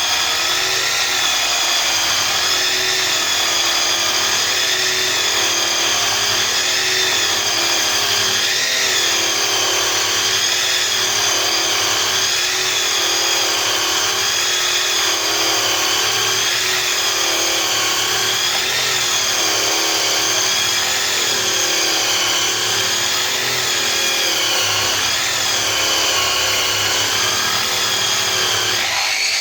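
Variable-speed grinder fitted with a brush, running steadily as it brushes a stainless-steel exhaust. Its whine wavers slightly up and down in pitch throughout.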